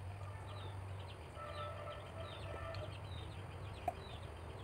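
Small birds chirping repeatedly in short downward notes over a steady low hum, with a longer drawn-out call between about one and three seconds in.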